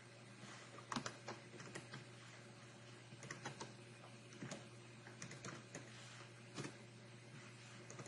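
Computer keyboard keys being typed in faint, irregular keystrokes, with short pauses between runs of keys.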